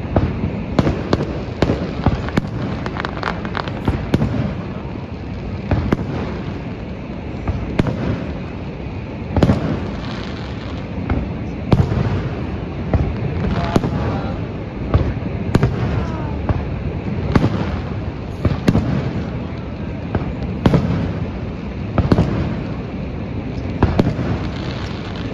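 Aerial fireworks display: a continuous run of booms and sharp bangs, some in quick clusters and others a second or two apart, over a steady background rumble, with a few short whistling glides midway.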